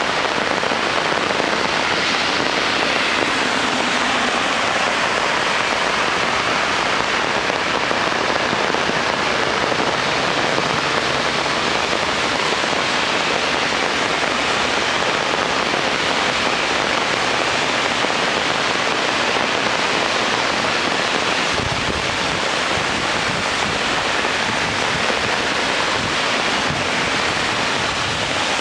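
Heavy rain falling in a steady, dense hiss, with traffic on the wet road. About three-quarters of the way through, a low rumble comes in under it.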